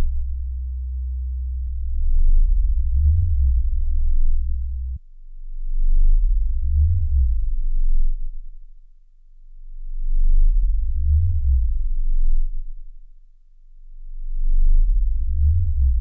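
Low electronic drone made of deep hum tones. It holds steady for about five seconds, cuts off sharply, then swells up and fades away in slow waves about every four and a half seconds.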